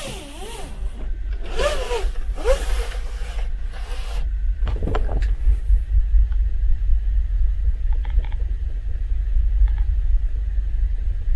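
Steady low rumble of the ferry's engines, heard from inside a passenger cabin. Rustling and scraping with a few squeaks come in the first few seconds, and a single sharp knock about five seconds in.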